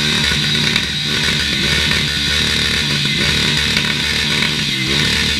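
Ducati Scrambler's air-cooled L-twin engine revved hard in neutral, the revs climbing and falling again and again in quick blips, then cutting back to nothing near the end.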